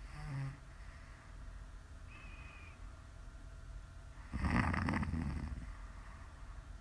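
A woman snoring in her sleep: a short snort right at the start, a brief thin high whistle in the middle, then one loud snore about four seconds in, lasting about a second.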